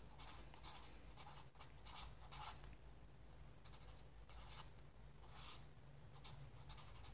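Sharpie fine-point felt-tip marker writing on a paper legal pad: a run of short, irregularly spaced strokes as numbers and letters are written, the loudest about five and a half seconds in.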